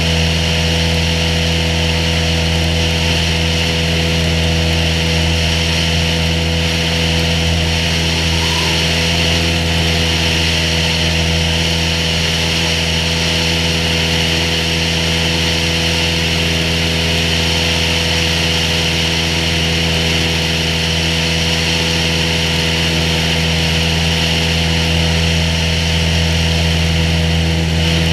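Cessna 182H's six-cylinder Continental O-470 engine and propeller running steadily in flight, heard from a camera mounted outside the cabin, with a steady engine drone under a rushing hiss.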